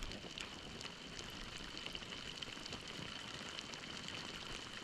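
Steady rain falling, with many small drop ticks over a soft hiss, and a faint, steady high whine.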